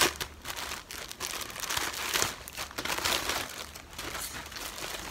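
Clear plastic bag crinkling as a garment is pulled out of it, in irregular rustles that die down near the end.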